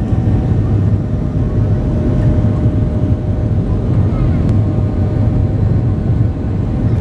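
Boeing 737 jet engines at takeoff thrust during the takeoff roll, heard from inside the cabin: a loud, steady, low rumble with a faint steady hum above it.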